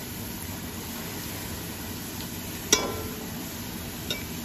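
Sliced onions frying in oil in a metal pot with a steady hiss, nearly golden brown. A slotted metal spoon strikes the pot once with a sharp, ringing clank about two and a half seconds in, and taps it lightly near the end.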